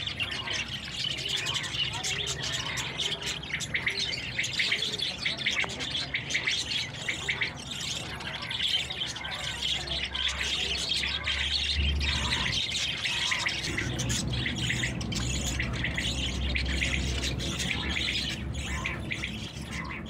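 A flock of budgerigars chattering and chirping continuously, many birds at once. A low rumble runs underneath in the second half.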